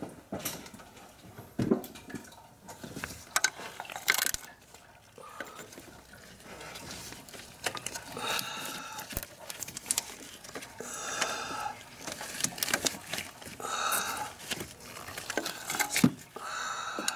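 Metal clinks, sharp clicks and scraping of hand tools and a wrench in an engine bay as a serpentine belt is worked back onto its pulleys and tensioner. The clatter comes in short irregular bursts, busier in the second half.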